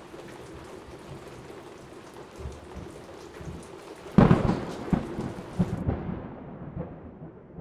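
Steady rain with a loud thunderclap about four seconds in that rumbles on for a couple of seconds. The sound then turns muffled and fades away.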